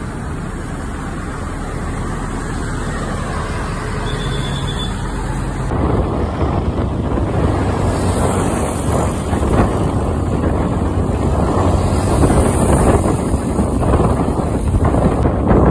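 A large bus engine running with a steady low hum as the coach drives past. About six seconds in this gives way to louder wind buffeting on the microphone over road noise, as from a moving motorcycle.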